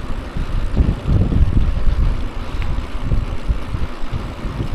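Wind buffeting the microphone of a moving bicycle rider, an uneven low rumble that rises and falls in gusts.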